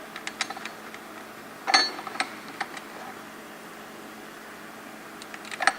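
Light clicks and knocks of a metal bracket and its bolts being handled and set into place in an engine bay, with a louder knock a little under two seconds in and another group of clicks near the end.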